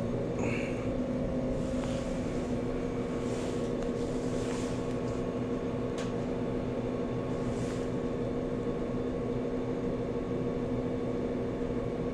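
Steady electric machine hum with several held tones, the kind of drone a lobby's ventilation or a refrigerated vending machine gives off. A single sharp click about halfway through.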